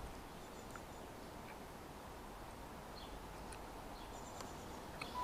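Steady, faint outdoor background noise with a few short, high bird chirps scattered through it.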